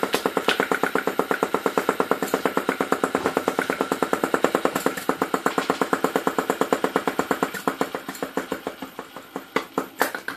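PM Research flame-eater (vacuum) model engine running on its alcohol flame, a fast, even clatter of piston and valve strokes. Near the end the beats weaken, falter and stop as the valve is blown off from crowding the engine too hard.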